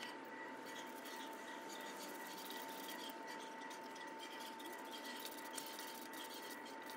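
Faint, irregular clicking of a Milwaukee ratcheting screwdriver driving screws through the bracket into wall plugs, over a steady faint tone.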